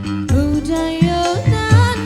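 Dangdut koplo music played live: a wavering, gliding melody line over a steady beat of low drum hits and bass.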